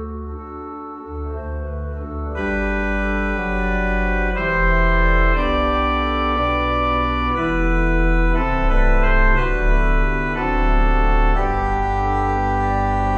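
Organ music: sustained chords over a deep bass line, the chord changing every second or two, growing fuller and louder about two seconds in.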